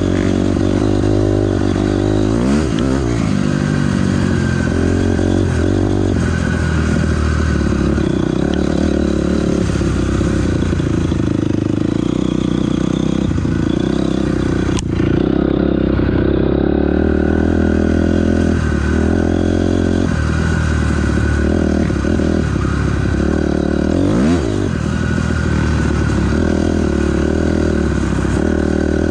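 2006 Honda CRF250R single-cylinder four-stroke dirt bike engine running hard while ridden, the revs climbing and dropping, with quick pitch swings about three seconds in and again near the end. A single sharp click sounds about halfway through.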